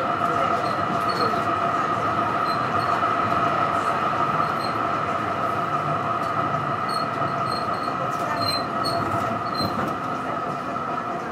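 Melbourne tram in motion, heard from inside the passenger cabin: a steady rolling rumble with a sustained high-pitched whine over it. The level eases slightly near the end.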